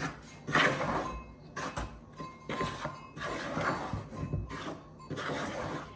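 Irregular rustling and scraping noises of things being handled, in several short bursts of a second or less.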